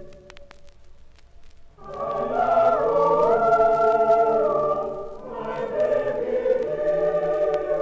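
A school chapel choir singing a Christmas carol in parts, from an old vinyl LP recording. The choir is silent at first apart from a few faint clicks, then enters together about two seconds in and sings on to the end.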